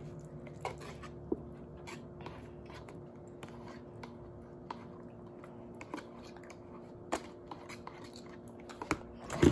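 Someone quietly chewing instant noodles, with scattered soft clicks and taps, over a steady low hum.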